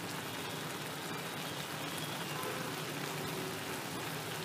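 Grated white pumpkin cooking in milk and condensed milk in a pan, bubbling and sizzling steadily as the mixture thickens.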